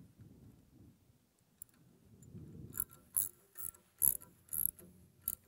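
Socket ratchet clicking in short bursts as a bolt is tightened down, about six metallic clicks roughly half a second apart in the second half.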